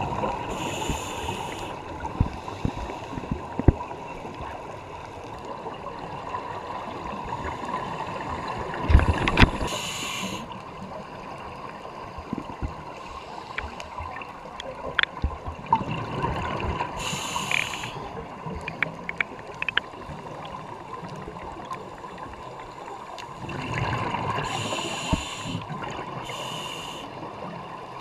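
Scuba diver breathing through a regulator, heard underwater: a rush of exhaled bubbles every several seconds, five times, with a low hollow rush of inhaling before some of them. Scattered small clicks and crackles sound throughout.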